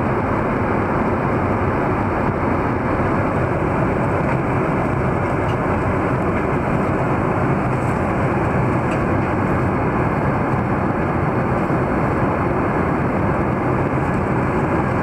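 Steady cabin noise of a Boeing 787-8 Dreamliner in flight: an even rush of airflow and engine noise that holds constant throughout.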